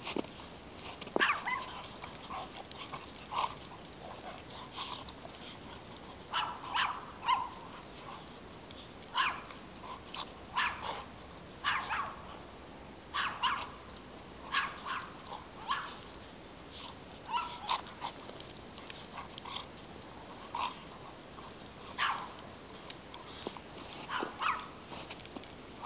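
Dog barking in short, sharp yaps, a few at first and then many in quick succession from about six seconds in.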